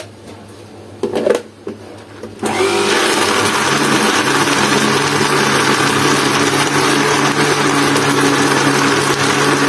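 A brief knock, then an electric countertop blender starts about two and a half seconds in and runs steadily, blending watermelon juice with ice cubes and water.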